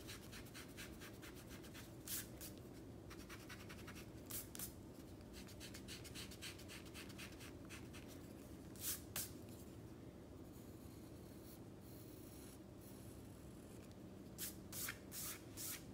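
Pencil drawing on paper: soft, continuous scratching of small strokes, with a few louder short strokes now and then.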